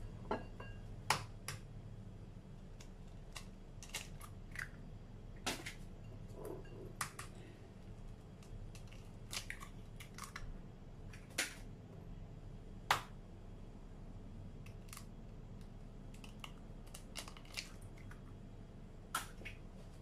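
Hen's eggs being cracked by hand into a bowl: scattered sharp cracks and clicks of eggshell, one every second or two, over a faint steady low hum.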